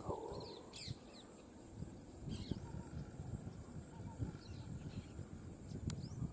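Small birds chirping in short, scattered gliding calls over a steady high insect hum, with irregular low rustling and crackling in the grass underneath.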